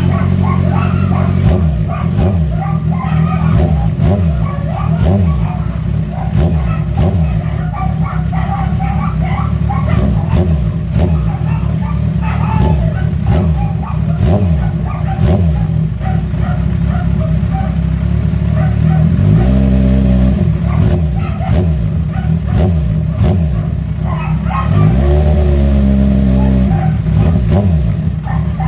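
Kawasaki Z1000's inline-four engine revved through its newly fitted exhaust canister: quick throttle blips that fall back to idle again and again, then two longer, held revs near the end.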